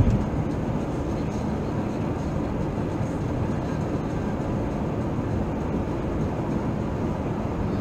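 Steady road noise inside a car driving at cruising speed: a low tyre rumble and engine hum, with no sudden events.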